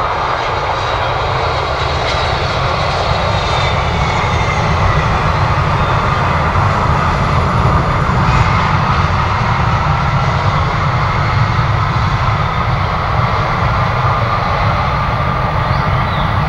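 An arriving jet airliner's engines running loudly and steadily, a low rumble topped by a whine whose tones drift slowly in pitch.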